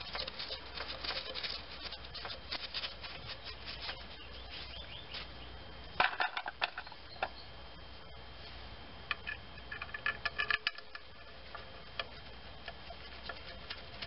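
Short runs of light clicking, tapping and rattling from hand tools on the timing cover bolts as they are gradually run in and snugged up, with a sharper click about six seconds in.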